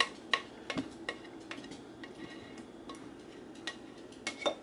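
A utensil scraping and tapping against a ceramic mixing bowl, a string of irregular clinks and knocks as the cheese mixture is scraped out.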